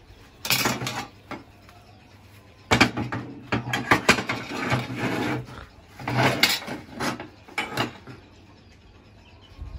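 Steel pieces of a homemade bench vise being handled and slid together: clanking and scraping of metal on metal, in several bursts with short pauses.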